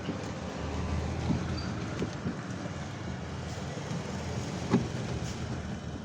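Steady low rumble of background noise, with a few sharp knocks, the loudest about three quarters of the way through.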